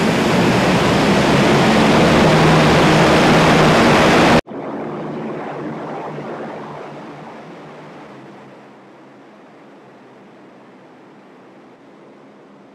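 LCAC hovercraft running on its air cushion in a ship's well deck: the loud, steady rush of its gas turbines, lift fans and shrouded propellers. The sound cuts off abruptly about four seconds in, giving way to a quieter craft noise that fades over the next few seconds to a low steady drone.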